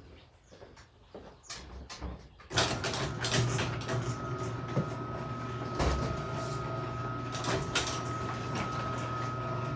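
Motorised overhead shop door closing: a sudden steady motor hum with a thin whine and rattling sets in about two and a half seconds in and keeps running.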